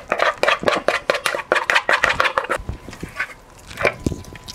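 Wooden spoon stirring a wet crumbled-cracker mixture in a plastic mixing bowl: a quick run of scrapes and clicks for the first couple of seconds, then a few scattered knocks.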